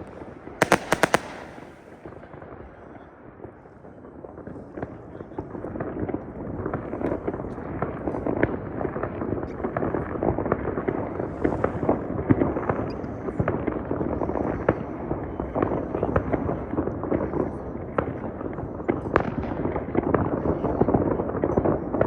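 New Year's Eve fireworks and firecrackers going off all around. A quick string of firecracker bangs comes about a second in, then a dense, continuous crackle of many bangs and pops grows louder from about four seconds in.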